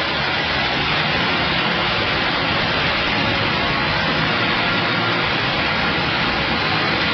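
Steady rushing hiss at an even level, with no rhythm, strokes or change in pitch.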